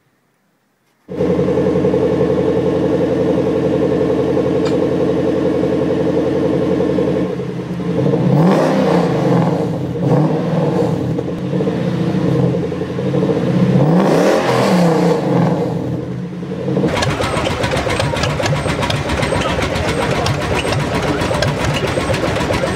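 Toyota 1UZ-FE V8 starts up about a second in and idles steadily. From about seven seconds in it is revved twice, its pitch rising and falling each time. Near the end the sound switches abruptly to a radial aircraft engine running, a denser, rougher rapid firing.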